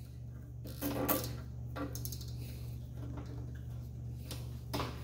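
Nylon zip tie being pulled tight around a lawnmower handle's control cable: a few short ratcheting clicks and plastic rustles, clustered about a second in and again near the end, over a steady low hum.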